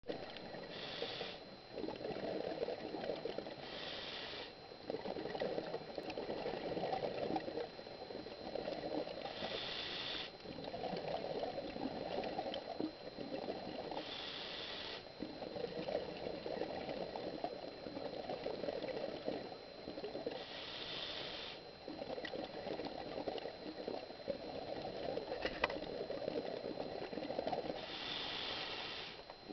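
Scuba diver breathing through a regulator underwater: a short hissing inhale every four to seven seconds, six in all, each followed by several seconds of bubbling exhaust bubbles.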